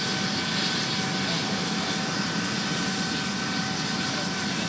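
MD Helicopters MD 902 Explorer twin-turboshaft helicopter running on the ground with its main rotor turning: a steady turbine whine with a constant high tone over a broad rush of rotor and engine noise.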